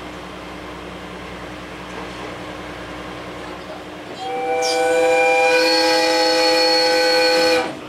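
A train's horn sounded once, a loud held chord of several tones starting about four seconds in and lasting about three and a half seconds before cutting off. Under it, the steady running noise of the train.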